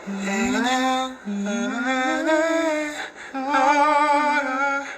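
A man singing a slow Korean ballad unaccompanied, in three long phrases with sliding pitch and held notes with vibrato; there is a short break about a second in and another about three seconds in.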